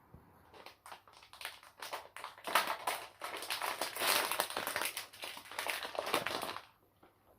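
Rapid crinkling and crackling, like something being crumpled by hand, starting about half a second in, growing denser and stopping abruptly near the end.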